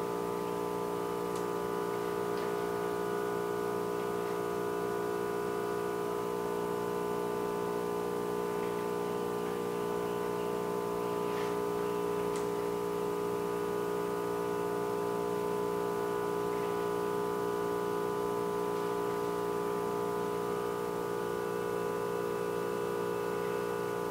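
A steady hum of several held tones that never changes, with a few faint clicks as a pry tool and pliers work at the phone screen's frame on the hot plate.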